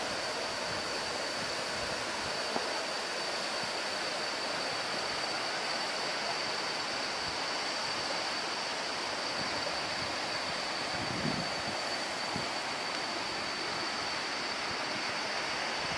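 Waterfall cascading down a rock face: a steady rush of falling and running water.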